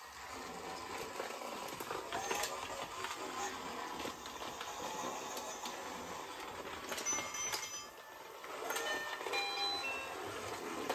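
Battery-powered VTech Toot-Toot Drivers toy train running along its plastic track: a steady motor whir and wheel rattle, with a few short electronic beeps from the toy about seven seconds in and again about nine to ten seconds in.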